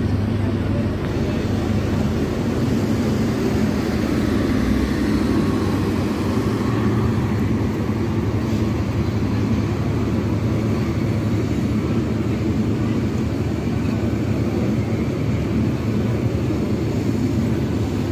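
Bangladesh Railway intercity train's passenger coaches rolling past, a steady rumble of wheels on the rails.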